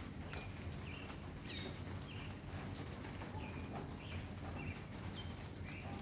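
Small birds chirping over and over in short notes, about two a second, over a steady low rumble of city traffic, with a few scattered clicks.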